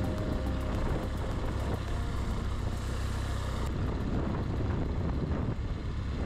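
A vehicle driving, with a steady rumble of engine and road noise. A little over halfway through, the high hiss drops off suddenly.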